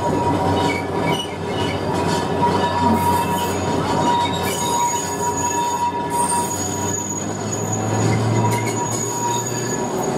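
Wheels of a 1904 electric tramcar squealing on the rails as it runs along street track: a steady high-pitched whine, joined by a second, higher squeal about four seconds in, over a low running hum.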